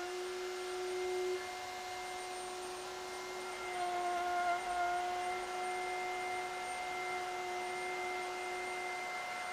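Table-mounted router motor running at speed with a steady high whine as a cast acrylic sheet is fed past the bottom-cleaning bit. The pitch wavers briefly about halfway through.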